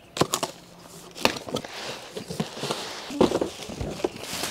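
Cardboard box being opened and its contents handled: several sharp knocks and clicks from cardboard flaps and foam packing, with crinkling of a plastic bag.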